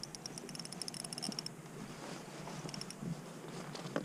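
Fishing reel clicking rapidly with a high ringing tone for about the first second and a half, then stopping, followed by a few light knocks of handling near the end.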